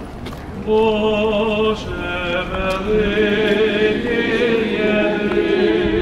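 Several voices singing a Byzantine-rite liturgical chant together, coming in about a second in and holding long notes with a slight waver in pitch.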